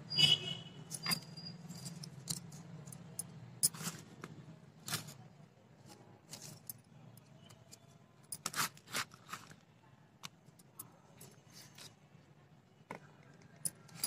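Hands working compost fertilizer into the soil of a plastic plant pot: scattered soft crumbly rustles and scratches at irregular moments. A short high chirp sounds at the start.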